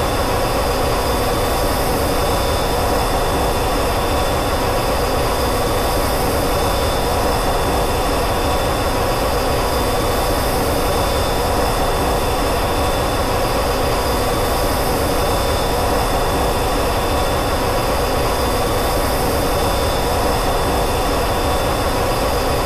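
Steady drone of a B-52 bomber's jet engines heard from inside the aircraft in flight, with a constant high whine over it.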